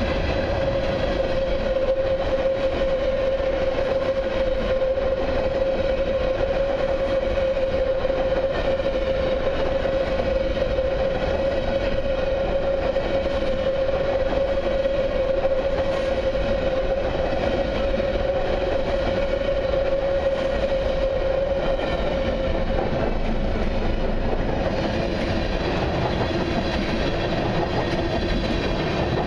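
Freight train's tank cars and covered hoppers rolling past at steady speed, steel wheels running on the rails. A steady tone rides over the rolling noise and drops to a lower pitch about three-quarters of the way through.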